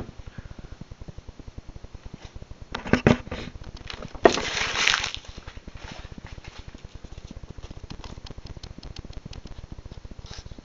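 Randall Model 28 knife blade cutting: a few short scraping strokes about three seconds in, then one longer rasping slice about four seconds in. The edge is still cutting fairly well. A steady fast low ticking runs underneath.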